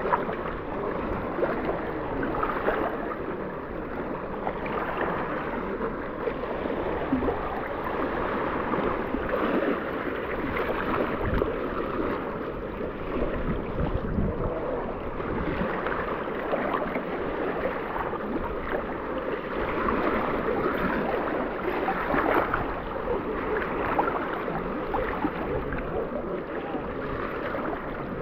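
Seawater sloshing and lapping around a speckled trout held in the water by hand to revive it before release.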